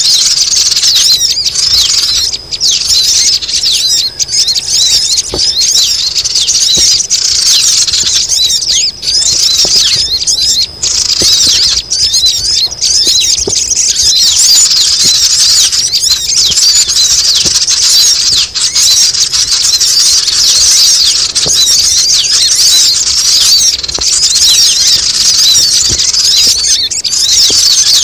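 Dense, continuous chattering of many sogon birds, high-pitched calls overlapping without a pause. This is a noisy lure call (pikat) used to draw wild sogon down.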